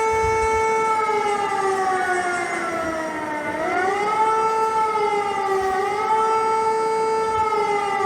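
Warning siren sounding a steady tone that slowly sags in pitch, drops lowest about three and a half seconds in, then swings back up and holds, with a smaller dip later on.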